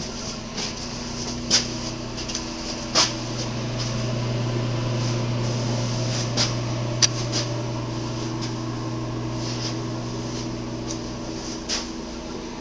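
Steady low ventilation hum, swelling for most of the middle and easing off near the end, with scattered light clicks and taps.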